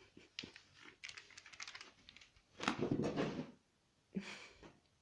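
A cat playing with a toy mouse on the floor: a quick run of light taps and scrabbling, then a louder scuffle about halfway through, and another brief one near the end.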